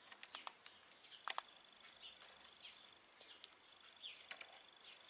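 Faint small-bird chirps, short falling notes repeated every second or so, over a thin steady high tone, with a few light clicks of card being handled about a second in.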